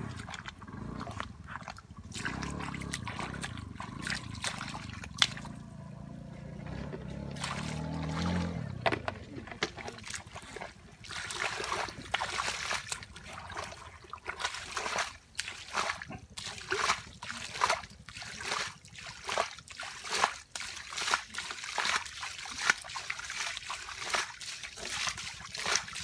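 Muddy water splashing and sloshing in a shallow puddle as a barefoot person wades and feels through it, the splashes coming thick and irregular from about ten seconds in.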